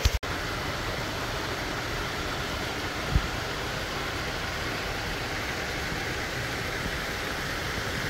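Steady rushing of a waterfall pouring over a rock ledge into a pool, with a single low thump about three seconds in.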